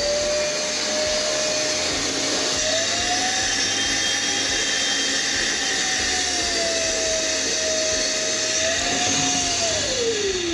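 WORX WU036 cordless wet/dry vacuum running with its suction on a blocked floor drain to pull the clog out. Its motor whine rises and falls in pitch a few times, then spins down near the end.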